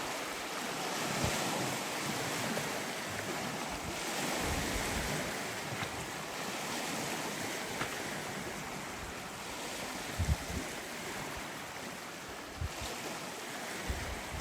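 Surf washing steadily on a rocky shore with wind, swelling and easing slowly. Wind buffets the microphone in a few short low thumps, about ten and thirteen seconds in.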